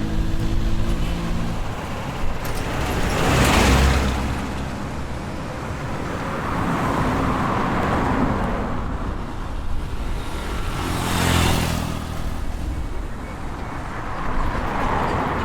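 High-street traffic: a steady hum of road vehicles, with one passing close about three and a half seconds in and another at about eleven seconds.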